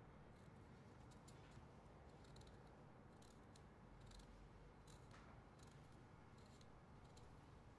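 Faint scratching ticks of a small carving tool scoring lines into a pumpkin's skin, scattered irregularly over a near-silent room.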